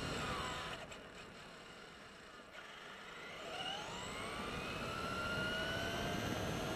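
Traxxas E-Maxx RC monster truck's electric motor and gears whining as it drives: the whine falls in pitch in the first second as it slows and drops quieter, then rises steadily from about halfway as the truck speeds up again, over low tyre and road rumble.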